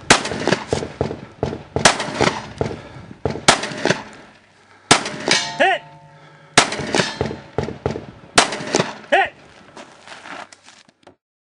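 A slow string of gunshots on an outdoor range, about one every one and a half to two seconds, with smaller cracks between them. A brief ringing tone follows a couple of the shots.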